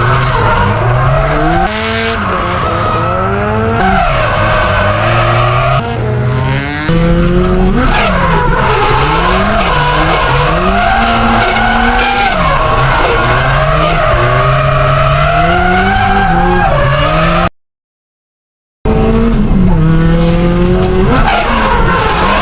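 Nissan S14 Silvia's turbocharged SR20DET four-cylinder revving up and down over and over while drifting, with tyres squealing and scrubbing under it. The sound drops out for about a second near the end.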